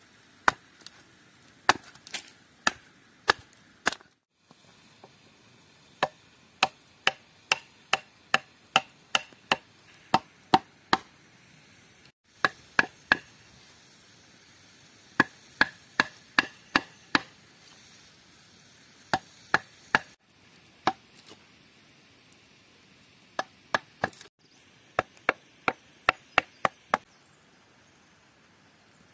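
Hand tools striking wood: hatchet blows and a wooden mallet driving a chisel into a log's end grain to hollow out a wooden plate. Sharp knocks, about one to two a second, in several short runs with brief breaks.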